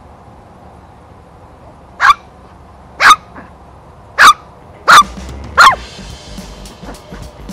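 Dog barking: five short, sharp, high-pitched barks about a second apart, starting about two seconds in.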